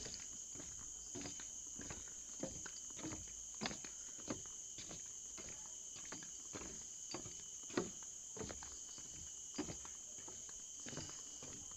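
Footsteps on the forest floor, uneven and about two a second, over a steady high-pitched insect chorus.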